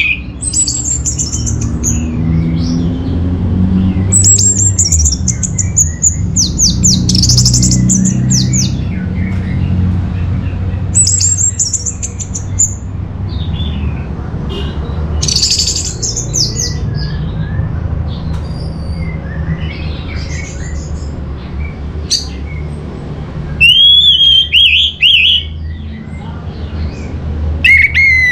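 Orange-headed thrush singing: short, high phrases of quick falling notes, repeated every few seconds, with a lower, rougher phrase near the end. A steady low rumble runs underneath.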